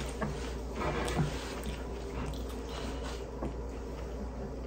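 Faint chewing of pizza crust, with a few small mouth clicks over a low steady hum.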